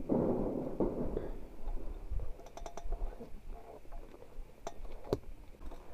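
Mountain bike on a rough dirt trail: scattered sharp clicks and knocks from the bike over a low rumble, loudest in the first second.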